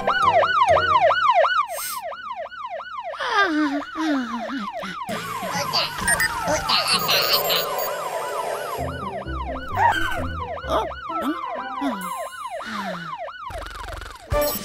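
Cartoon siren sound effect: a fast up-and-down wail repeating about four times a second, loudest in the first two seconds, with falling whistle-like glides and other cartoon effects mixed in.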